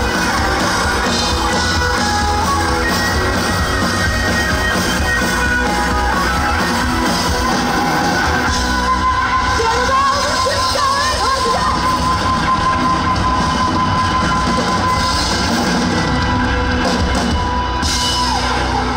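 Live rock band playing with drums and a singer, over crowd noise. A long held note runs through the second half.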